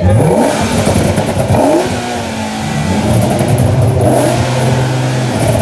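Car engine revving hard: it climbs in pitch twice in the first two seconds, then holds steady at high revs.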